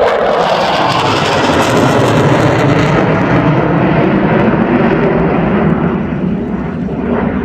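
Saab JAS 39 Gripen fighter jet passing in a flying display, its jet engine loud and steady; the hiss thins out from about three seconds in and the sound dips slightly near the end as the jet moves away.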